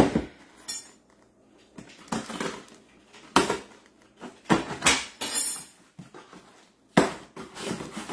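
Cardboard box being handled and opened on a granite countertop: a string of knocks, scrapes and cardboard rustling, with sharp knocks at the start and about seven seconds in.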